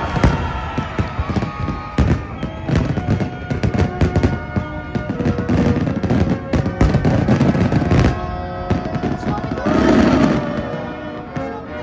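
Fireworks bursting in quick, irregular bangs over music.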